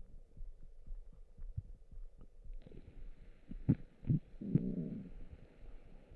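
Human stomach gurgling, recorded close up: a run of soft, low pops, with a longer bubbling gurgle about four and a half seconds in.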